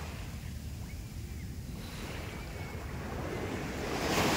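Beach ambience: surf with a steady low rumble of wind on the microphone. A louder rushing swell comes near the end.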